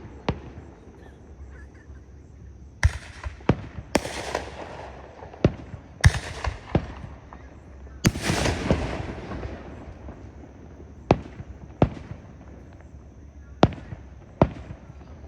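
Aerial fireworks show: irregular sharp bangs of shells bursting, several followed by about a second of crackling, the heaviest crackle about eight seconds in.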